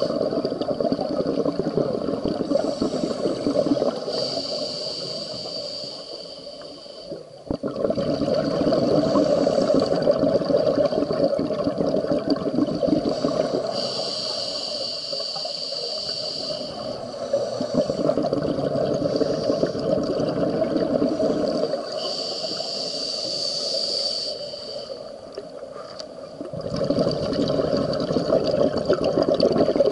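Scuba diver breathing through a regulator underwater. Each breath is a hissing inhale followed by a long bubbling rush of exhaled air, repeating about every eight seconds.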